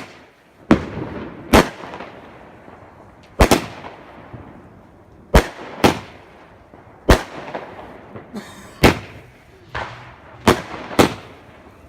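Fireworks going off: about ten sharp bangs at uneven intervals, each followed by a fading echo.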